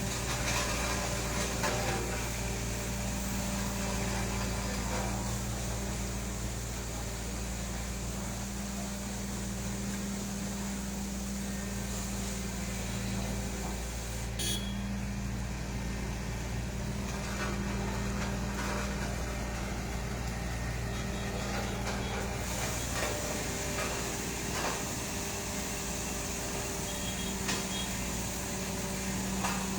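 Road roller's diesel engine running steadily at a constant speed, a low even hum, with a few faint knocks.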